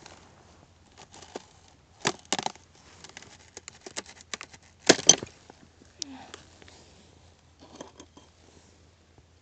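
Thin puddle ice cracking and snapping as it is broken by hand: a few sharp cracks about two seconds in, the loudest pair of snaps about five seconds in, and lighter crackling in between and near the end.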